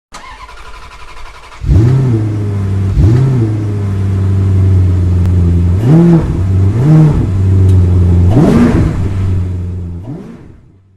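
A motor running steadily with a low hum. Its pitch briefly rises and falls about six times, and it fades out near the end.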